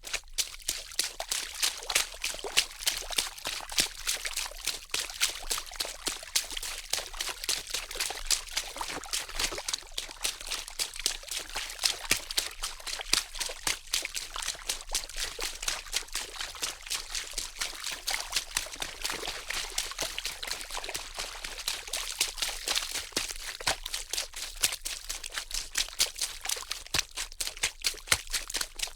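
Water splashing steadily: a continuous, busy run of small irregular splashes and droplets with no pause.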